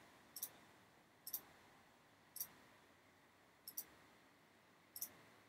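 Computer mouse clicking: five short clicks about a second apart, some in quick pairs, over near silence.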